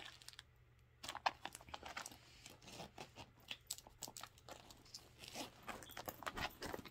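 A handbag being handled: irregular rustles and light clicks from its gold chain strap, zippered pockets and body, starting about a second in.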